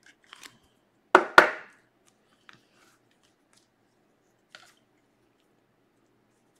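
Trading cards being handled on a table: two sharp knocks about a quarter second apart a little over a second in, then a few faint clicks.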